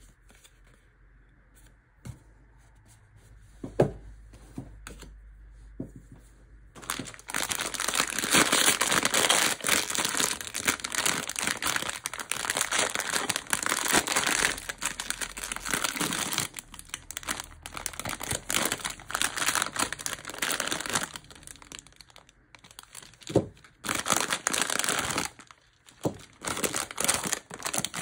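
Foil-lined blind-box bag being torn open and crumpled by hand: dense crinkling and tearing in irregular bursts with short pauses. Before that, a few quiet seconds with a couple of light taps.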